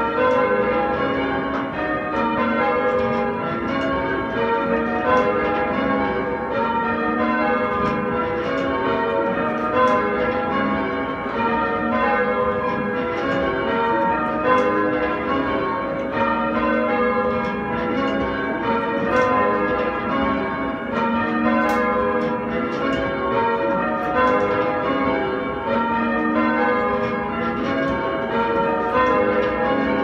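A ring of eight Taylor church bells (1898 and 1901 castings) in full-circle change ringing, the bells striking one after another in a steady, unbroken succession of rows, heard from the ringing chamber below.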